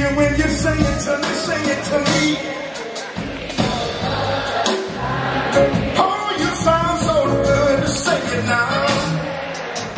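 Live jazz band playing through a large outdoor amphitheatre's sound system, heard from the audience seats, with a lead melody line sliding and bending in pitch over the band. The bass drops away for a moment about a second in and comes back.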